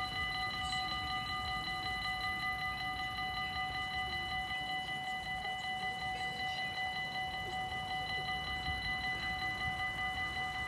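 Dutch level crossing warning bells ringing in a rapid, even, unbroken rhythm, signalling that the crossing is closed while the barriers are down.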